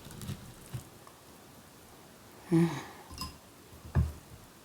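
Light handling sounds of food and tableware: a few soft knocks and a small click, with a brief murmured vocal sound about halfway through and a sharper thump near the end.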